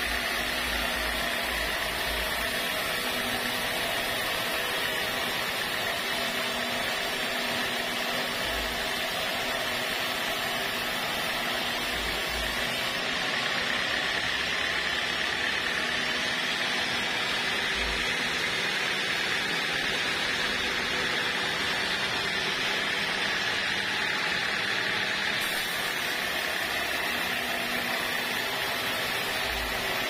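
Band sawmill running steadily, its blade ripping lengthwise through a squared waru gombong log, with a steady high whine over the noise of the cut.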